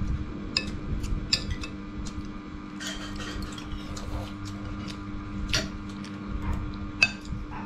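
Metal spoons clinking and scraping against ceramic plates of rice while people eat, with several sharp clinks spread through. A steady low hum sits underneath.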